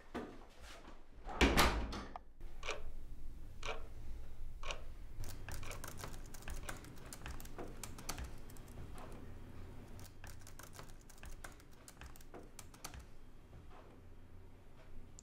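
A door shuts with a loud thud about a second and a half in, followed by typing on laptop keyboards: quick runs of key clicks that grow sparser near the end.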